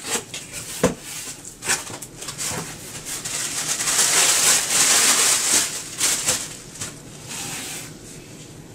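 A cardboard shipping box being opened by hand. A few sharp knocks and scrapes come first, then a long, loud rustle and tearing of the packing as the flaps are pulled open. Tissue-wrapped clothing is lifted out as the rustle fades.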